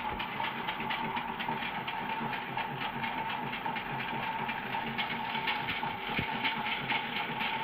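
Toy washing machine's small electric motor spinning the drum with a steady whine and fast, continuous rattling. The load is badly unbalanced, a plastic object inside, so the whole machine shakes as it runs.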